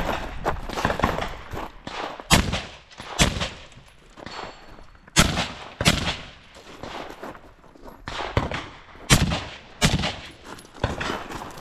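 Semi-automatic rifle shots fired in quick pairs, three loud pairs each under a second apart, each shot ringing out briefly. Fainter shots sound in the first second or so and near the end.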